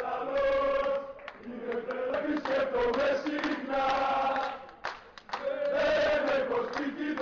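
A crowd of football supporters singing a chant together in unison, in sung phrases with a short break about five seconds in.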